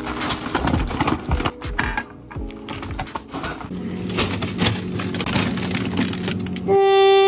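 Plastic grocery bags and bags of frozen fruit crinkling and rustling as they are handled and stacked into a freezer, with faint music underneath. Louder music with held, horn-like notes comes in near the end.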